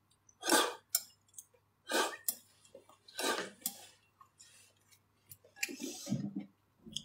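Mouth slurping mutton broth from a glass bowl of Henan stewed noodle soup, several separate slurps of about half a second each, with a couple of light clicks in between.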